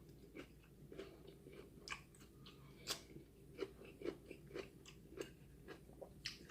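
A person chewing food close to the microphone: soft, irregular mouth clicks and smacks, about two a second.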